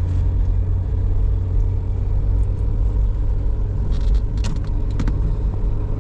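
Car running, a steady low rumble of engine and road, with a few short clicks or rattles about four and five seconds in.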